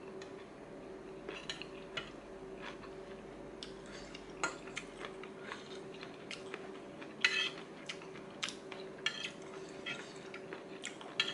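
A metal spoon and fork clinking and scraping against a plate as salad is scooped and eaten. The clicks come at irregular intervals, with a louder run of scraping about seven seconds in.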